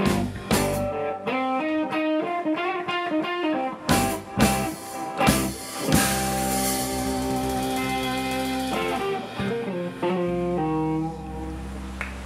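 Live blues trio of electric guitar, electric bass and drum kit playing an instrumental jam. Quick guitar licks and drum hits run for about the first half, then a long held chord rings out under a cymbal wash, followed by a few short stabs and another held chord near the end, the way the closing bars of a tune go.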